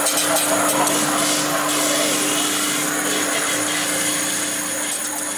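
Steady, loud machine hiss with a constant hum running underneath, easing slightly toward the end.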